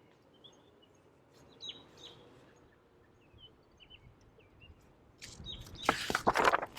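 Small birds chirping in the background, scattered short high calls through the whole stretch. Near the end, a louder rustling noise lasting about a second covers them.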